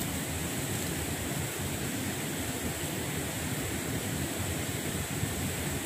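Steady rush of flowing river water, with a low flutter of wind on the microphone.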